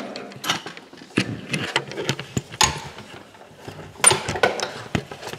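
Scattered light clicks and a few sharper metallic knocks: a tie-down strap's hook and buckle being handled and hooked to a ring on a steel motorcycle lift table.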